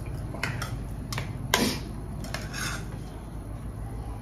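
A handful of short clinks and scrapes of utensils against dishes while eating a meal, the loudest about a second and a half in.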